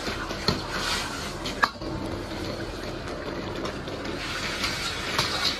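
Starch-thickened sauce simmering and bubbling in a steel wok, with a couple of sharp clinks of a steel ladle against the pan.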